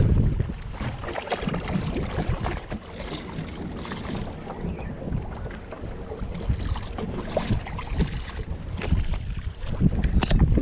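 Wind buffeting the microphone over water slapping and lapping against a small boat's hull, gustier at the start and again near the end.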